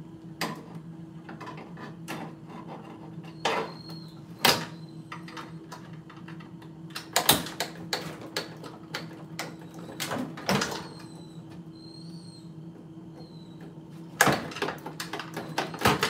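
Irregular clicks, knocks and clanks of metal parts and tools being handled inside a microwave oven's sheet-metal casing as it is taken apart, with a few louder knocks, over a steady low hum.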